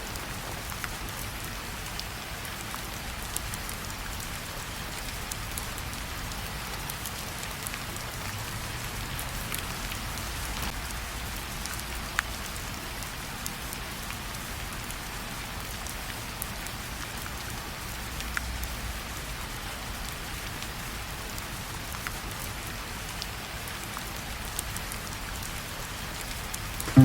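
Steady rain falling, an even hiss with scattered single drop ticks.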